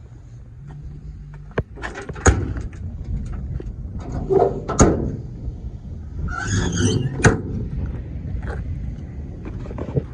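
Sharp knocks and clicks from handling the compartment doors and lids of a truck's utility body, with a short scraping rustle about six seconds in.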